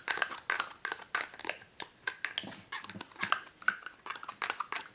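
A slime kit's mixing tool scraping sticky ooze base off the sides of a bowl: a quick, irregular run of scrapes and clicks.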